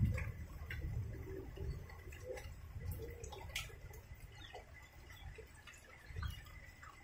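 Rain dripping: scattered faint drips and ticks of water over a low, steady rumble.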